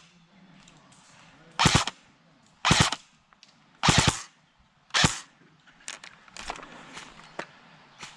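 Electric airsoft rifle firing four short full-auto bursts, each a rapid rattle of shots lasting a fraction of a second, about a second apart. Fainter scattered shots follow near the end.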